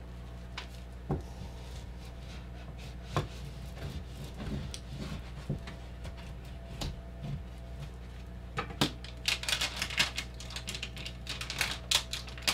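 A sticker being handled and pressed onto a wooden wall: scattered light taps and knocks, then from about eight and a half seconds a quick run of rubbing and scraping strokes as it is smoothed down. A steady low hum runs underneath.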